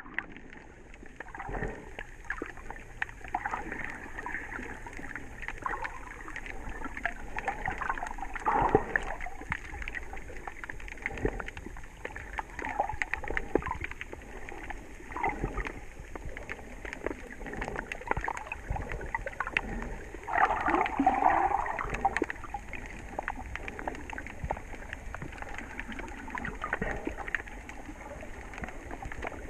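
Muffled underwater sound picked up by a submerged camera: irregular gurgling and water movement with scattered faint clicks, and a louder gurgling stretch about twenty seconds in.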